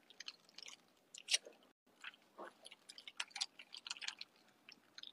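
Faint chewing close to the phone's microphone: irregular small crunchy clicks and mouth noises, with one louder click about a second and a half in.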